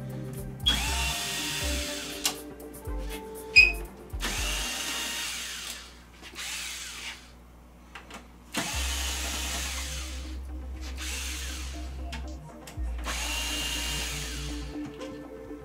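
Power drill-driver backing out the back-cover screws of a flat-screen TV in about four runs, each one to four seconds long and each with a whine, with a sharp click between the first two.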